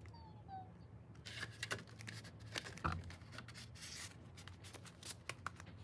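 Album packaging being handled and unwrapped by hand: irregular crinkling, rustling and tearing of plastic and paper.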